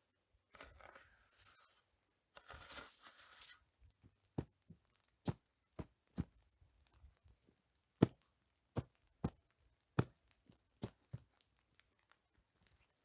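Two short spells of tearing, rustling noise, then a run of irregularly spaced sharp knocks or snaps.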